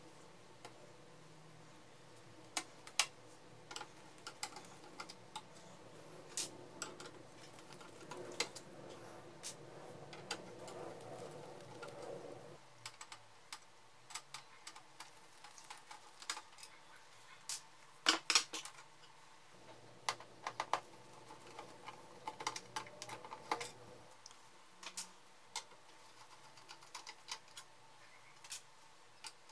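Irregular clicks and taps of a screwdriver and gloved hands working on the metal side frame and plastic parts of a partly stripped colour laser printer, with a quick cluster of sharper clicks about eighteen seconds in.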